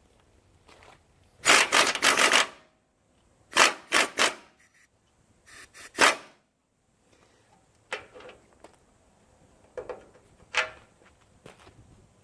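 A power tool cutting rivets out of a steel truck frame, run in three short loud bursts, followed by a few fainter knocks on the metal.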